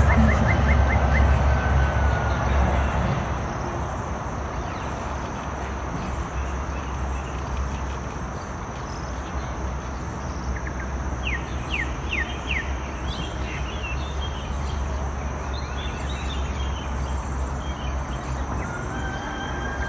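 Steady low outdoor rumble of wind and water. Birds call over it: a quick run of chirps near the start, a few sharp chirps about halfway through, and a held whistle near the end.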